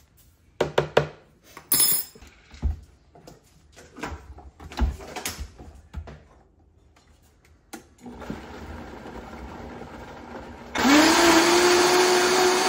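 Clicks and knocks of handling kitchen things, then a quieter steady hum about eight seconds in. Near eleven seconds a countertop blender comes on at full power, its pitch rising quickly as the motor spins up, then running steady as it purées a watery salsa verde.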